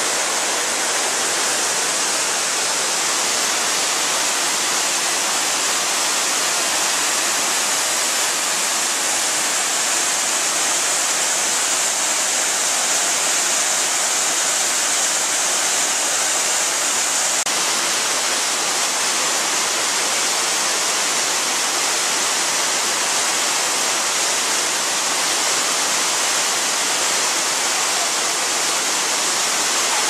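Waterfall and rocky stream water rushing: a steady, even roar of falling water with a bright hiss.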